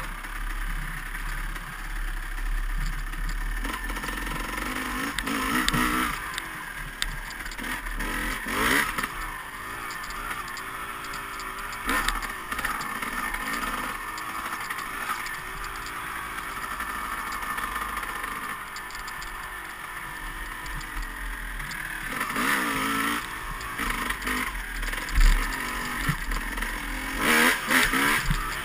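Dirt bike engine revving up and down as the bike is ridden hard over rough ground, with knocks and rattles from the bike hitting bumps, the sharpest a little before the end.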